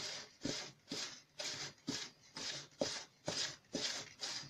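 A hand stirring dry flour with salt and sugar in a plastic bowl: rhythmic swishing strokes, about two a second.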